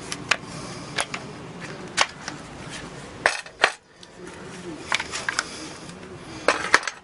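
Irregular sharp clicks and knocks, about ten of them, as a Makita 18V cordless hammer drill is handled without its motor running.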